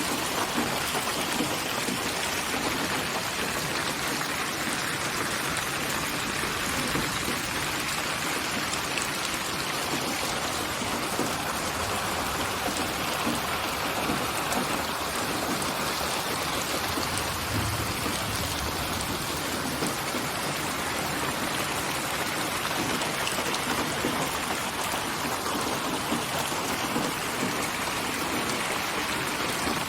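Steady rain falling, an even continuous patter of drops that never lets up.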